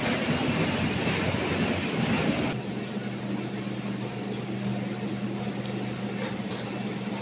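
Snack production line machinery running: a dense, noisy rush from the rotating octagonal seasoning drums, which cuts off about two and a half seconds in to a quieter, steady motor hum with a low drone from the chip conveyor.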